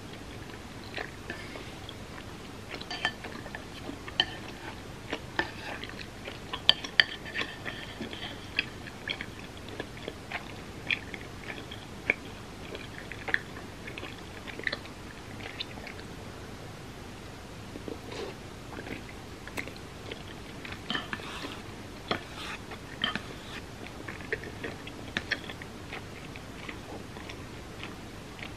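A person chewing and biting food, with irregular wet mouth clicks and smacks.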